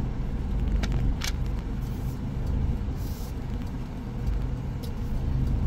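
Chevrolet S10's 2.8 MWM turbodiesel engine running at low speed, a steady low rumble heard from inside the cab. A couple of short clicks come about a second in.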